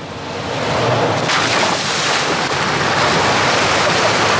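A loud, steady rushing noise that builds over the first second, with a low engine hum running beneath it.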